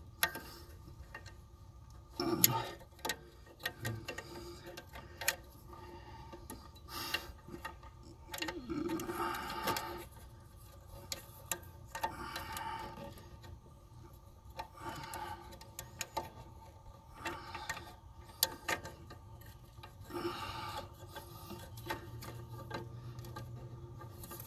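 Scattered light clicks, small knocks and rubbing as hands work the plastic plug wires and the timing light's inductive clamp, clipping it onto the cylinder-one spark plug wire with the engine off.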